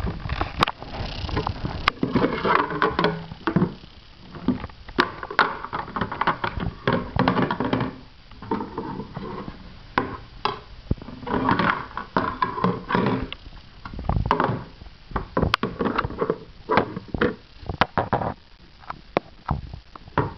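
Plastic toy-kitchen parts and toy dishes clattering and knocking as a toddler handles them: the oven door, a plastic plate and a plastic tray, with irregular clacks throughout.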